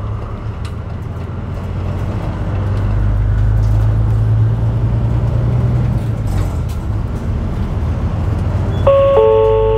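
Diesel route bus engine pulling away, heard from inside the cabin, its low drone building over the first few seconds. Near the end a two-note electronic chime sounds, stepping down in pitch: the lead-in to the automated next-stop announcement.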